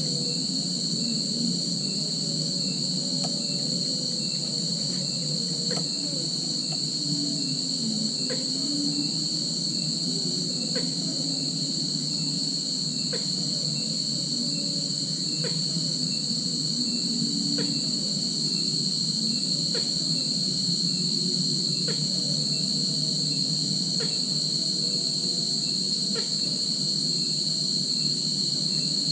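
Steady, continuous chorus of insects chirring at a high pitch, with faint ticks about every two seconds and a low murmur beneath.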